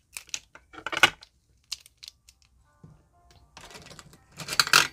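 Paper bills, marker pens and a plastic cash envelope being handled on a desk: scattered clicks and taps, then a loud burst of paper and plastic rustling near the end.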